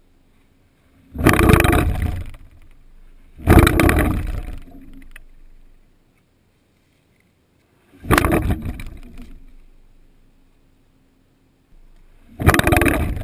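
Mountain bikes passing right by the microphone four times, each a sudden loud rumble of tyres on the plank deck that fades over a second or two.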